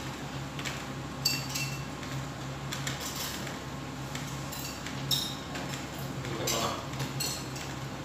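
Plates and serving utensils clinking against dishes and food containers as food is dished out: several scattered, ringing clinks over a steady low hum.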